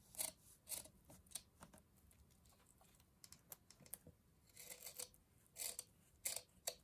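Small scissors snipping the ends of a grosgrain ribbon: a series of faint, short snips and clicks, with a few longer cuts in the last couple of seconds.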